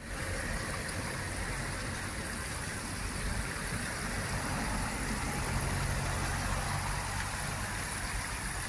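Shallow stream water running steadily over a low step in the streambed, a continuous even rush with a faint low hum underneath.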